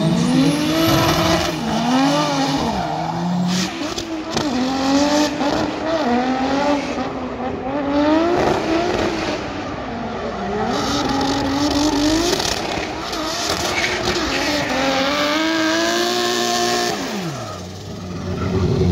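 Drift car engine revving up and down over and over as the throttle is worked through a slide, with tyre squeal underneath. Near the end the engine note drops away steeply.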